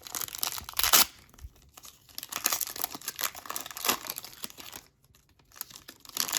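Hockey card pack wrapper being torn open and crinkled, in irregular rustling bursts; the loudest tear comes about a second in, with a short lull near the end.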